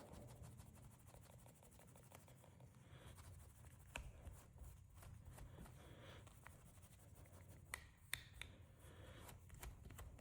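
Faint rubbing as Flitz metal polish paste is worked by hand onto a pocketknife blade, with a few light clicks.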